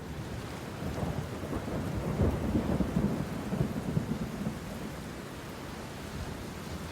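A deep rumble over a steady hiss. It swells about a second in, is loudest between two and four seconds, then eases off.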